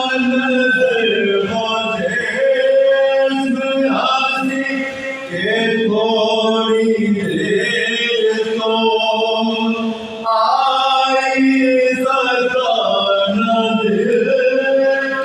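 A group of men's voices chanting a soz, the Urdu mourning lament of Muharram, a lead voice with others singing along in long held notes. The phrases break briefly about five seconds in and again about ten seconds in.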